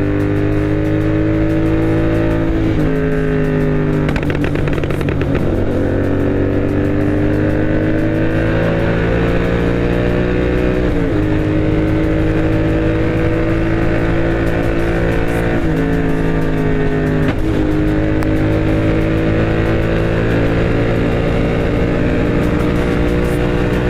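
Royal Enfield GT 650 parallel-twin with an aftermarket Moto Torque exhaust, ridden under acceleration. Its note climbs slowly through each gear and drops sharply at each of several upshifts.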